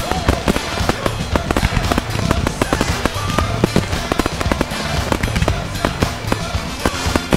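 Fireworks display going off in rapid succession: aerial shells bursting and crackling, with many sharp bangs a second, over continuous music.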